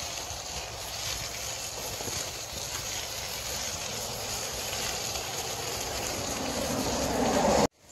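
Steady rushing of a bicycle being ridden along a dirt path: wind on the microphone and tyre noise, swelling louder over the last couple of seconds before cutting off suddenly.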